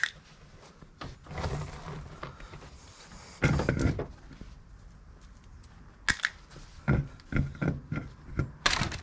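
Metal tools and brake parts clinking and knocking against each other in separate sharp hits, with a quick run of knocks near the end, while a tight brake bolt is worked loose.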